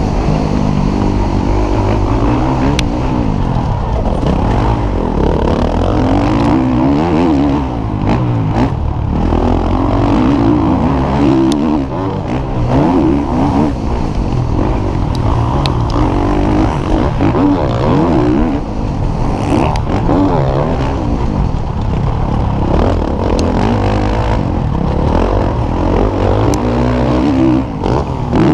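Motocross bike engine at race pace, its pitch rising and falling over and over as the rider opens and closes the throttle and shifts, with occasional knocks from the rough ride.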